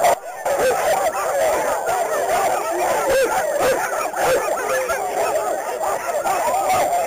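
A team of sled dogs in harness barking, yelping and howling together in a dense, continuous chorus, many high yips overlapping: the typical clamor of sled dogs eager to start a run.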